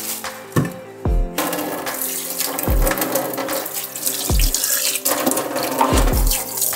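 Tap water running and splashing over a whole fish being rinsed in a stainless steel sink, starting about a second and a half in. Background music with a deep bass beat plays throughout.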